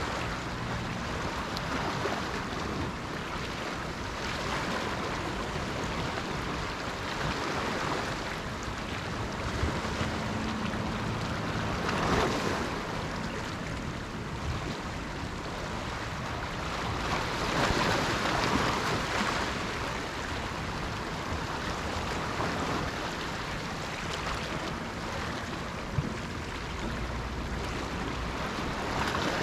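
Sea waves washing onto the shore in a steady wash, swelling louder a few times and with one sharp click near the end.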